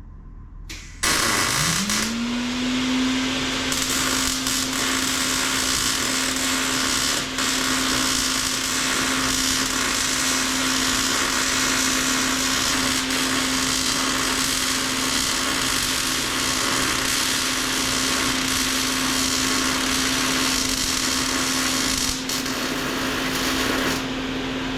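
Electric power tool motor spinning up about a second in, then running at a steady pitch for over twenty seconds with a strong hiss over it.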